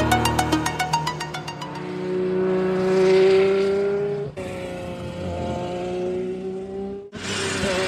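An electronic music track dies away over the first second or so. Then a race car is heard being driven hard on a track, giving a high, nearly steady note. The sound is spliced from short pieces, with abrupt cuts about halfway through and near the end.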